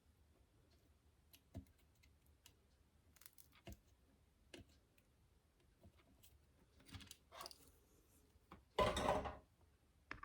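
Scattered small clicks and handling noises in a small room, with a louder half-second rustling scrape about nine seconds in.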